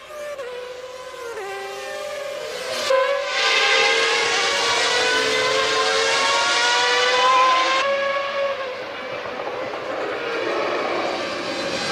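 Formula One car engines at high revs, a high, whining tone. The pitch steps down several times in the first few seconds, like downshifts, then holds loud, falling and rising for about five seconds before turning duller and quieter near the end.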